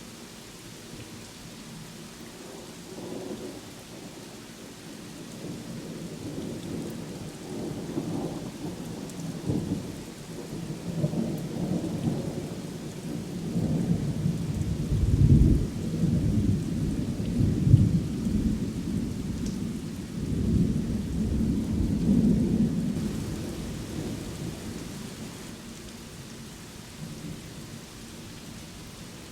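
Steady rain falling, with a long roll of thunder that builds, peaks with a couple of sharp cracks midway, and rumbles away near the end.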